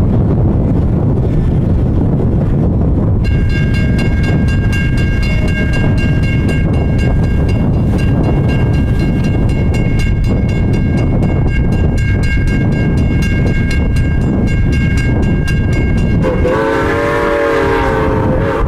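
Norfolk & Western 475, a 4-8-0 steam locomotive, sounding its six-chime steam whistle in one long steady chord from about three seconds in until near the end, over the steady low rush of the approaching train. Near the end a lower, wavering whistle tone sounds for about two seconds.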